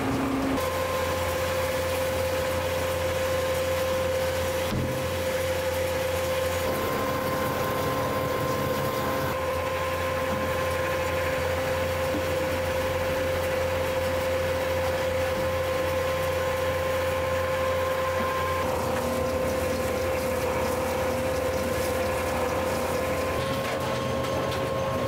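A machine running steadily with a constant mid-pitched whine over a low hum, starting just after the beginning.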